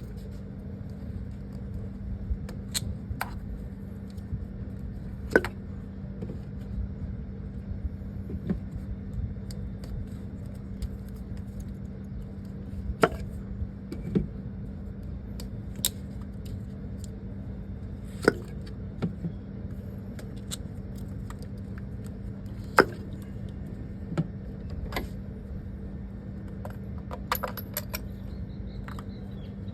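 Hand tools clicking and clinking against metal at irregular intervals as a spark plug is removed from the engine, over a steady low hum.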